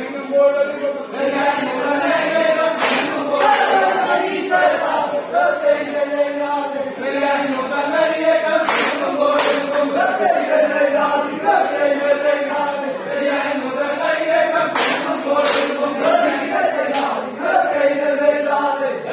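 A large group of men chanting a song in unison, the melody rising and falling line by line, with sharp group handclaps, usually in pairs, every several seconds.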